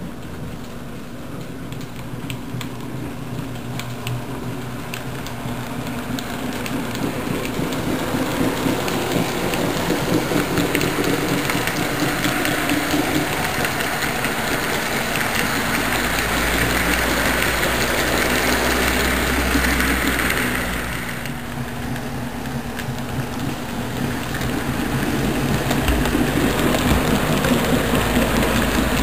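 HO scale model passenger train running on the layout track: the rolling rumble of its wheels and motor, with a steady low hum. It grows louder as the train approaches, drops briefly about three-quarters of the way through, then builds again.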